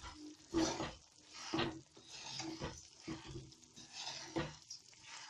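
A spatula stirring and scraping jaggery round a pan as it melts in ghee, with scraping strokes roughly once a second.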